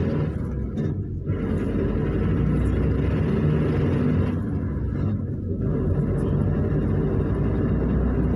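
Engine and road rumble of a Luidor-225000 (GAZ-322133) minibus, heard from inside the passenger cabin while it drives. The noise is steady, with the higher part easing briefly about a second in and again around five seconds.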